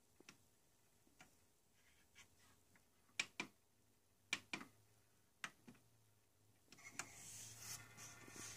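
Sharp button clicks from the front panel of a Marantz CD60 CD player, a dozen or so in all, several in quick press-and-release pairs. About seven seconds in, a soft noisy rustle starts and grows.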